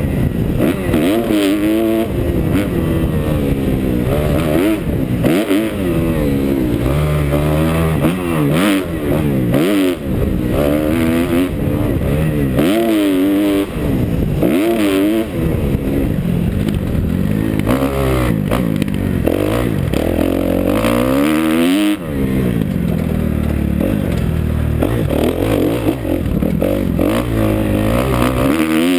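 2011 Kawasaki KX250F's single-cylinder four-stroke engine under hard riding, revving up and down again and again as the throttle is worked, heard from the rider's helmet camera.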